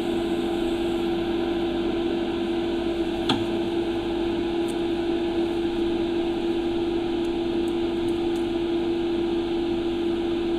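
Steady hiss of argon purge gas flowing from the cylinder through the hose into a stainless steel exhaust link pipe, over a steady fan hum. One light click about three seconds in.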